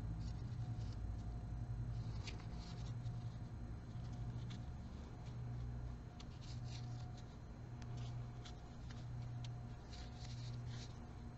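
Crochet hook working yarn: soft, irregular scratchy clicks and rustles of the hook and yarn as stitches are made, over a steady low hum.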